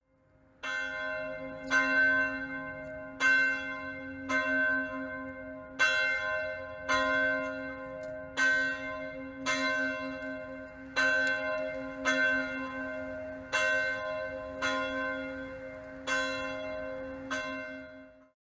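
The church's Paul Revere bell, a cast bronze church bell, rung in a steady series of about fourteen strokes, roughly one a second. Each stroke rings on into the next. The ringing stops suddenly near the end.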